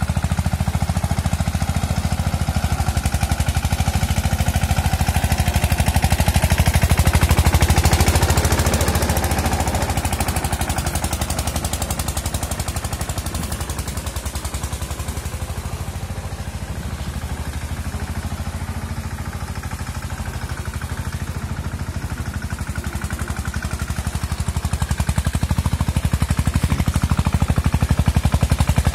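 Mahindra Yuvraj 215's single-cylinder diesel engine chugging in a rapid, even beat as the tractor pulls a rotary tiller through the soil. The sound grows louder as the tractor comes near, fades as it moves away, and grows louder again near the end.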